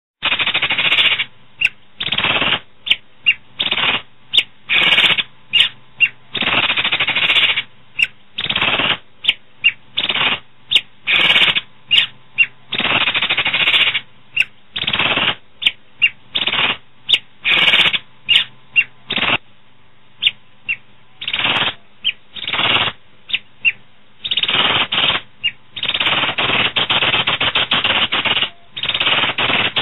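Asian pied starling (jalak suren) singing loudly and vigorously: harsh, rasping, chattering phrases in rapid bursts of varying length, some short and clipped, some drawn out, with a brief pause about two-thirds through.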